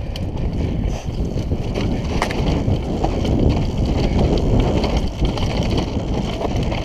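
Downhill mountain bike descending fast on a dirt trail: wind buffeting the camera microphone over a constant clatter of the bike and its tyres on the rough ground.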